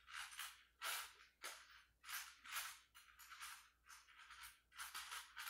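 Near silence: quiet room tone with faint short hissing pulses, about one or two a second.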